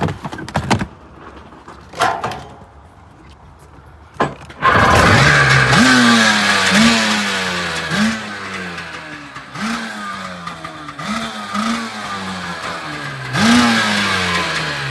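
1996 Sea-Doo XP's freshly rebuilt two-stroke twin, set up with no flywheel on a total-loss ignition, started after a few short clicks and catching about four and a half seconds in. It is then blipped about eight times, each rev rising sharply and falling back quickly, and it winds down near the end.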